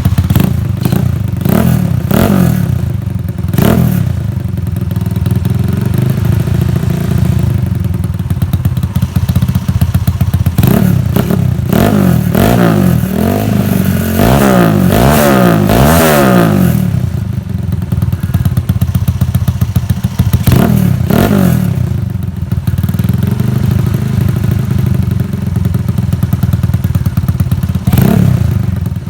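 Honda C70 motorcycle with a bored-up Honda Win single-cylinder four-stroke engine, breathing through an aftermarket PDK exhaust, idling with a steady low beat and blipped several times. Around the middle a run of quick repeated revs rises and falls in pitch.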